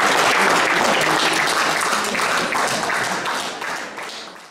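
A small audience applauding by hand with many overlapping claps, fading out near the end.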